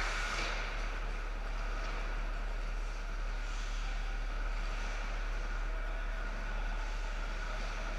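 Ice hockey rink during play: a steady wash of skates on the ice over a low steady hum, with a brief sharper skate scrape just after the start.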